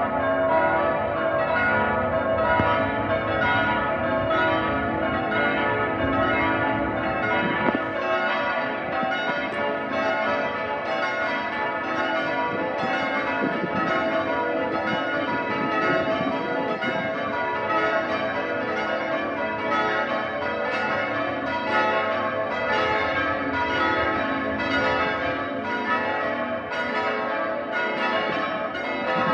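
Church bells being change-rung by a team of ringers: a rapid, even succession of bell strikes, each bell's tone ringing on and overlapping the next.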